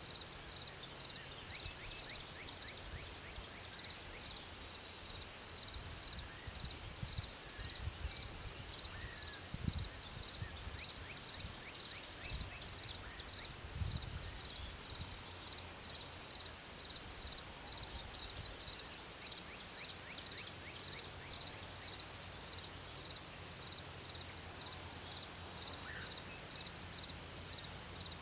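Insects chirping steadily in a high-pitched, rapid, regular pulsing chorus.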